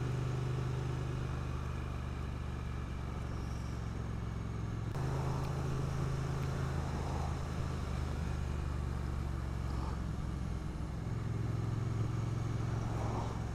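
Triumph Street Twin 900's parallel-twin engine running steadily while riding, with wind and road noise over it. The engine note shifts abruptly about five seconds in.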